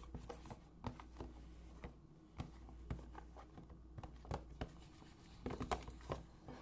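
Irregular clicks and taps of a plastic food tub being handled, its lid and sides knocked by fingers, with a cluster of louder knocks near the end.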